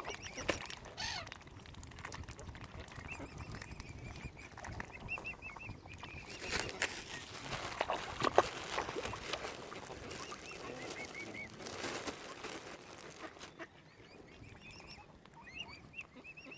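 Young mute swan cygnets peeping: many short, high, repeated calls, thinning out near the end. A few rustling noisy stretches and one sharp knock about eight seconds in.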